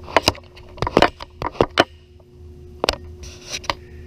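Handling noise: several sharp clicks and light rubbing and scraping, scattered through the first three seconds, with a soft hiss a little after. Under it runs a steady hum, and the small tiled room makes everything sound close and boxy.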